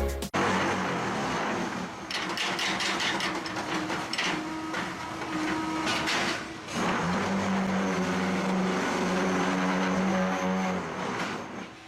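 Machinery running: a steady mechanical hum with clattering and knocks, the hum shifting to a lower, steadier tone about seven seconds in.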